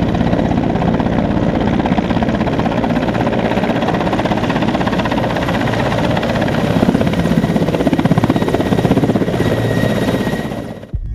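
Mi-17 helicopter's rotor and turbines running loud and steady with a fast, even blade beat as it comes in low to land. The sound cuts off suddenly at the very end.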